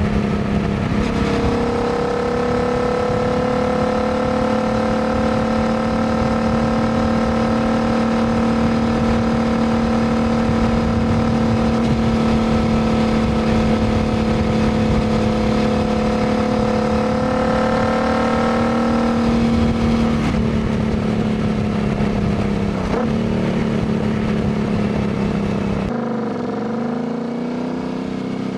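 2019 Royal Enfield Continental GT 650's parallel-twin engine through a Diablo full aftermarket exhaust, pulling at a steady, slowly rising pitch while cruising. About two-thirds of the way in the steady note breaks up, and near the end the pitch dips and climbs again.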